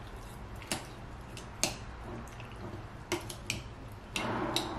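Wooden stick poking down inside glass mason jars packed with roasted green peppers and water to free trapped air bubbles: a scattering of light clicks as the stick taps the glass. Near the end there is a louder stretch of soft rustling noise.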